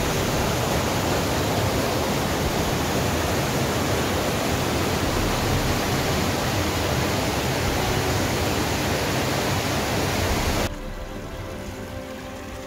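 Mountain stream rushing over rocks and down a small waterfall: a steady, loud rush of water. It cuts off abruptly about two seconds before the end, leaving quieter background music with held notes.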